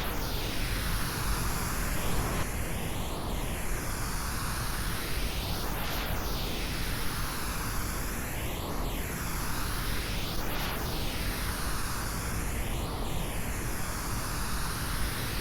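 Steady pink noise processed as 8D audio. Its tone sweeps in a phaser-like way that comes round about every two to three seconds as the sound moves around the head.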